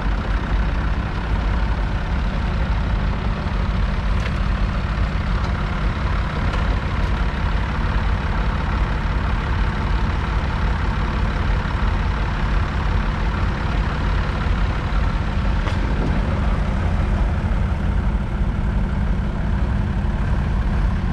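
Massey Ferguson 135's 2.5-litre three-cylinder Perkins diesel engine running at a steady speed.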